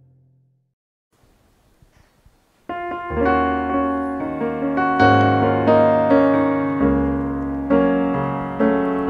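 Piano music: the last note of the previous song dies away, a second or two of near quiet follows, then about a third of the way in a piano starts playing slow sustained chords as an introduction.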